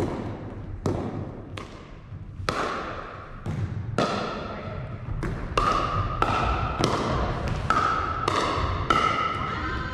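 Pickleball rally: sharp hits of paddles on a plastic pickleball and the ball bouncing on a wooden gym floor, about fifteen in all, coming faster after the serve. Each hit rings on in the echo of the large hall.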